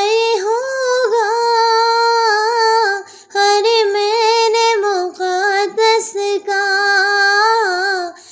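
A naat, an Urdu devotional song, sung solo by a female voice in long, wavering held notes, with a short break about three seconds in.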